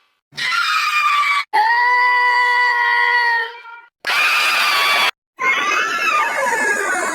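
Cartoon character screams edited back to back: four screams, each cut off abruptly, the second a long scream held on one steady pitch for about two seconds.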